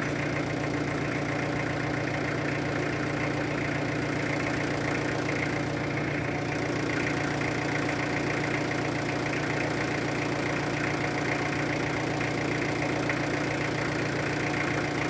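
UniCarriers forklift engine idling steadily, running on its own after its starter was repaired.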